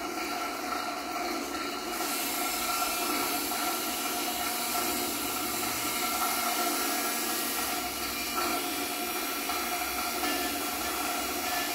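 Live experimental noise performance with objects and electronics: a steady hissing drone with a few held tones, the high hiss growing louder about two seconds in.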